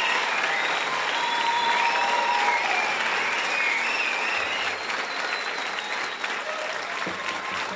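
Audience applauding at the end of a song, fading slightly toward the end, with a few voices calling out over the clapping in the first three seconds.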